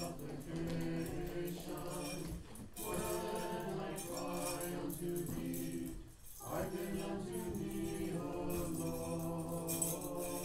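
Church choir singing Orthodox Vespers chant in harmony, breaking off briefly about six seconds in. Small censer bells jingle over the singing, most clearly near the end.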